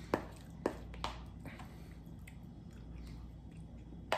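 Metal fork clicking and scraping against a plastic takeout bowl while scooping food, with three sharp clicks in the first second and another near the end. Quiet chewing between them.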